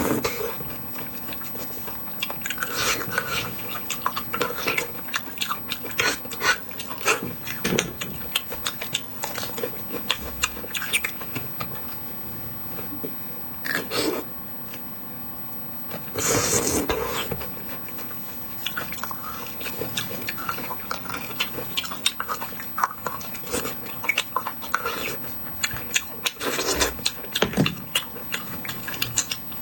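Close-up eating sounds of bone marrow being eaten: wet mouth clicks, smacking and chewing, with a few longer, louder sucking bursts, the longest about halfway through.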